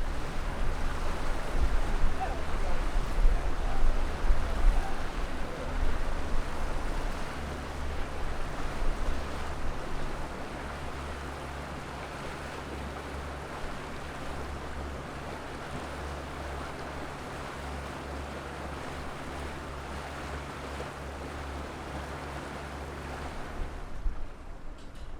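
Outdoor ambience with wind buffeting the microphone over a steady low hum, gustier for the first ten seconds and then calmer.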